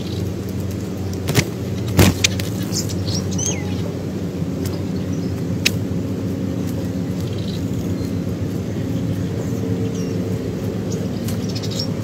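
A steady low motor hum, like an engine running nearby, with a few sharp clicks about a second and a half and two seconds in.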